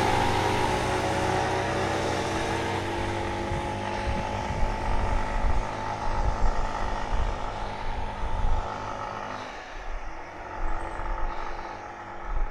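A motor vehicle that has just gone past drives away, its engine note sliding slightly lower and fading out over about ten seconds. Wind buffets the microphone throughout.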